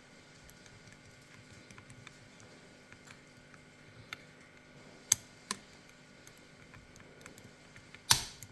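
Faint metal ticks and clicks of a pick and tensioner working the pins of an Izis pump lock, with two sharper clicks about five seconds in. A louder, short clack near the end as the cylinder turns and the lock opens.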